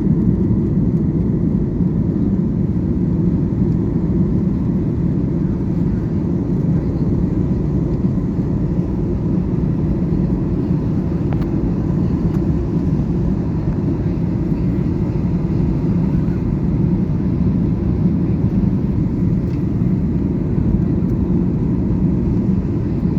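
Jet airliner's engines and airflow heard as a steady, loud, low rumble.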